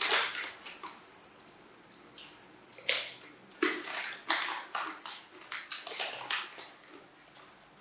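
A young macaque crunching cracker-coated peanuts: a string of irregular, sharp crunches, the loudest about three seconds in.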